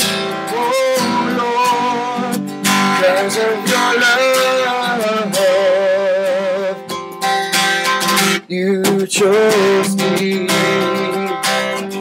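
Acoustic guitar strummed steadily while a man sings long, wavering held notes over it.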